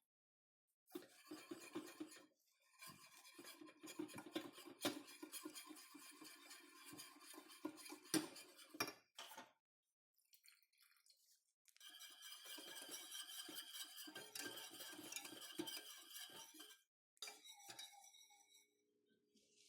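Metal utensil scraping and clinking against cookware, in two long stretches with a pause of about two seconds between and a short burst near the end.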